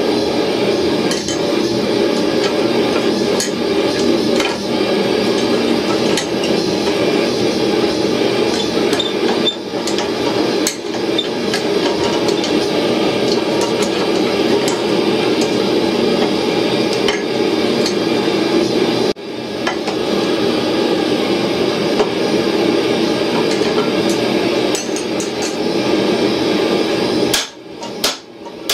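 A forge running with a steady loud rush, with faint clinks of tools. Near the end it gives way to a hand hammer striking a red-hot steel tow ball on the anvil, about two blows a second.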